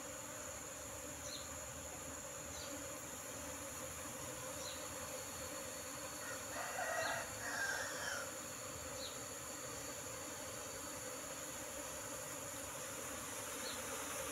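Honey bees buzzing in a steady hum around an opened wooden box hive, the colony stirred up by the honey harvest. About halfway through a rooster crows once.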